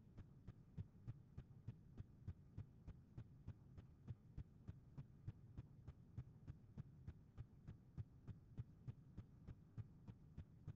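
Near silence: a faint low hum with soft, regular ticks about three times a second.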